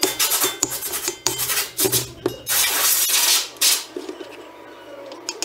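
Metal tools clinking and scraping against a tractor wheel hub housing on a workbench, with a loud burst of noise lasting about a second midway, then quieter handling.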